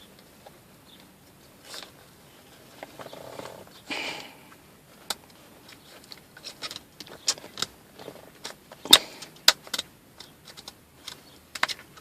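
Shift lever parts being handled and fitted together by hand, giving irregular sharp clicks and rattles with a few brief rustles. The loudest click comes about nine seconds in.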